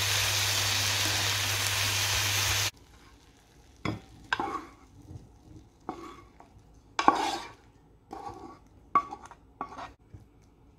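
Sliced mushrooms and onions sizzling in a non-stick frying pan as they are stirred with a spatula, over a steady low hum. The sound cuts off suddenly after about three seconds. About eight short scrapes and knocks follow as the mushrooms are scraped out of the pan into a bowl with the spatula, the loudest about seven seconds in.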